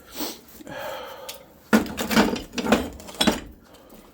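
Someone rummaging through items on a workshop shelf: soft rustling, then about halfway through a quick run of clattering knocks and clinks as hard objects are moved about.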